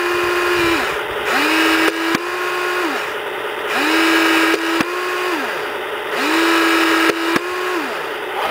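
Heng Long Tiger 1 RC tank's airsoft firing unit cycling repeatedly: a small electric motor whines up, holds for about a second and winds down, about every two seconds, with a sharp click in each cycle, over a steady hiss.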